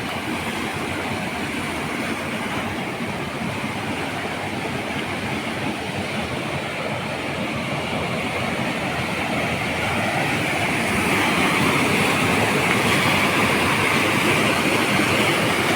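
Waterfall: a steady rush of falling water, growing a little louder about ten seconds in.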